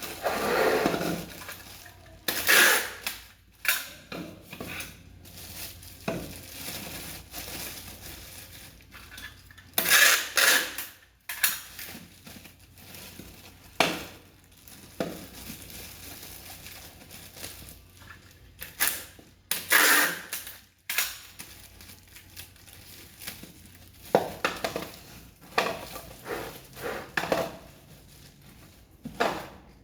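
Small hard parts from a water-filter parts package clattering and clinking against each other as they are handled and set down, in irregular bursts with a few louder clatters.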